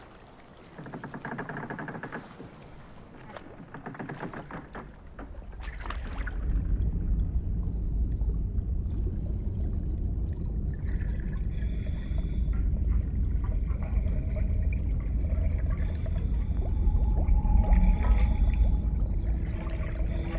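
Soft water lapping and splashing for the first few seconds, then a steady, deep underwater rumble, with short bursts of bubbling about every two seconds in the second half.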